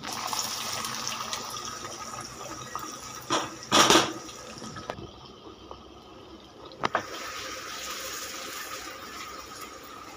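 Hot oil sizzling steadily as food fries in a pan, with two loud knocks or clatters about three to four seconds in and a short sharp click near seven seconds.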